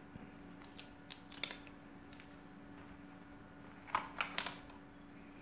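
Faint handling clicks and taps of unboxing packaging: a coin-cell battery's plastic blister card is set down, then a short cluster of rustles and knocks about four seconds in as a hand reaches into the cardboard box.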